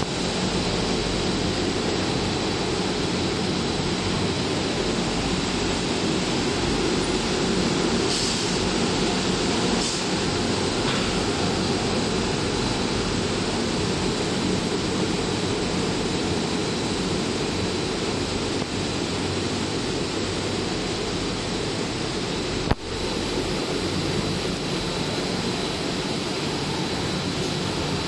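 PP hollow corrugated sheet extrusion line running: a steady mechanical din of motors and machinery with a faint high steady tone, and one sharp click about three-quarters of the way through.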